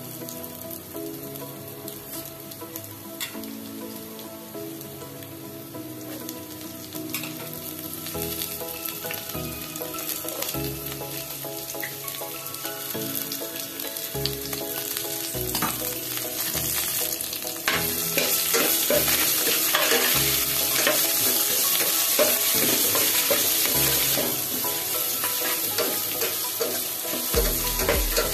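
Lentils, peanuts, cashews and spices sizzling in hot oil in a stainless steel pan as a South Indian tempering, stirred and scraped with a spatula. The sizzling gets louder about two-thirds of the way through.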